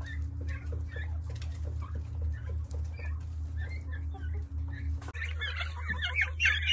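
Young turkeys peeping in short repeated calls, a few a second, over a steady low hum; about five seconds in, the sound changes suddenly to a dense chorus of many young turkeys calling at once.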